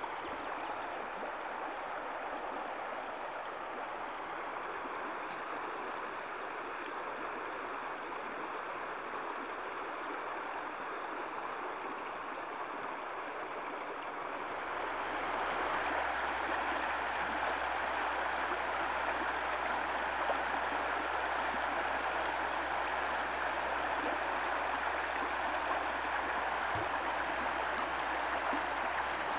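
Shallow mountain stream running over a stony, pebble bed: a steady rush and ripple of water. It becomes louder and brighter about halfway through.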